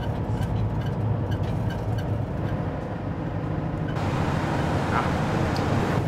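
City bus running, heard from inside the passenger cabin: a steady low engine drone with road noise. Faint regular ticks sound in the first couple of seconds, and a wider hiss of road noise joins about four seconds in.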